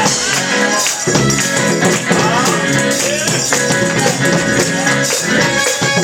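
Live gospel band music playing loudly, with a tambourine shaking along to the beat.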